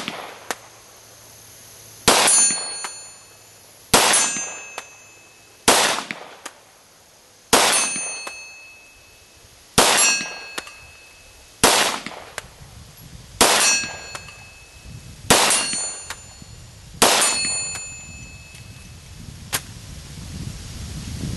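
An FN FNP-9 USG 9mm pistol firing nine shots, about two seconds apart. Most shots are followed by the ringing clang of the steel plate being hit. Two shots have no ring: they are the misses.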